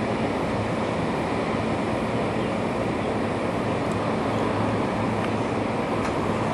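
Steady, even rumble of distant engine noise with a faint low hum, and a few faint ticks.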